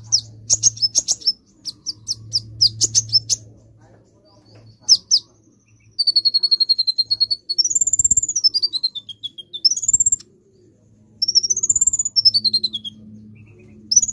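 A male kolibri ninja sunbird singing: a run of quick, sharp high chirps in the first few seconds, then long, fast, high trills that rise and fall in pitch.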